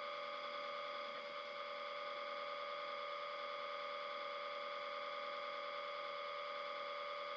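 Steady electrical hum and whine of several fixed tones over a faint hiss, unchanging throughout: background noise of the recording setup.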